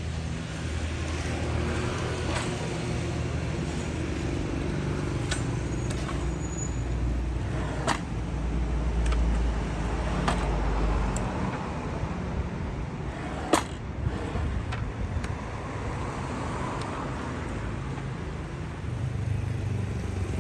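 Steady background rumble of road traffic, with a few sharp clicks about eight, ten and thirteen and a half seconds in.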